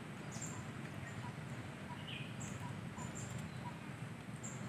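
Faint birds chirping: a few short, high calls scattered through, over steady outdoor background noise.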